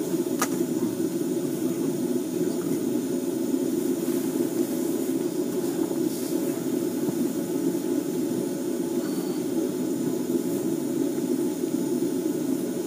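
A steady, low rushing noise that does not change.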